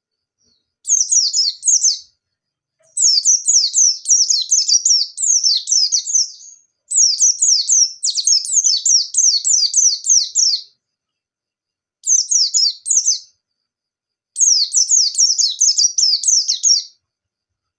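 Pleci (white-eye) in full song, firing off rapid runs of high, quick downward-slurred notes, the 'nembak' style of a bird singing hard. It sings in five bursts of about one to four seconds with short gaps between them.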